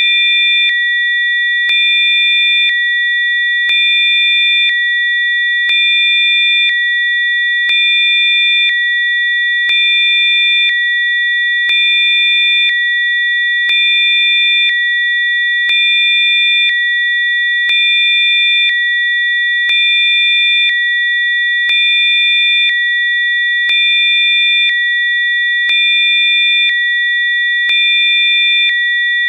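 Electronically generated Rife-frequency sine tones: several steady, high pure tones sounding together. Beneath them, a faint low tone and another faint tone take turns about once a second.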